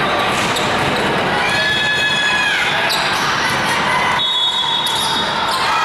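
Volleyball play echoing in a gym: sharp ball contacts over a steady hubbub of spectators, with a high squeaky tone held for about a second, about two seconds in.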